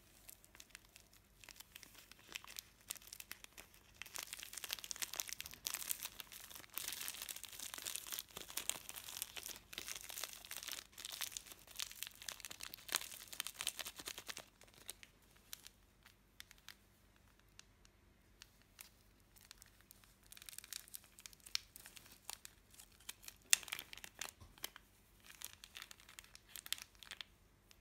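Plastic glitter packets crinkling and crackling as they are handled: a long stretch of crinkling while the clear bag is shaken out and squeezed, a pause, then more crinkling with one sharp crack as a purple foil packet is handled and opened.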